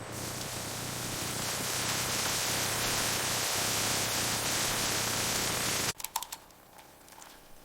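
Steady hissing noise that swells slightly and then cuts off abruptly about six seconds in, followed by a few light clicks.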